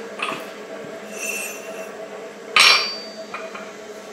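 Steel clinking on an anvil as a spring-steel plate and a slitting chisel are set down and handled on its face: a few light clinks and one louder, ringing clank about two and a half seconds in.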